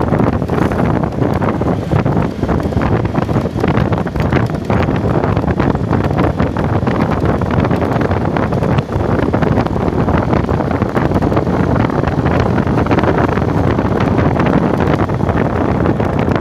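Heavy wind buffeting the microphone of a moving open vehicle, a steady rushing noise with the travel noise of the ride underneath.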